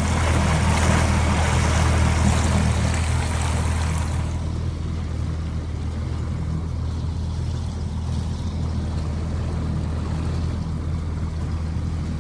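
Tohatsu four-stroke outboard motor running steadily as the skiff moves along, with a rush of water and wind that is heavier for about the first four seconds and then eases.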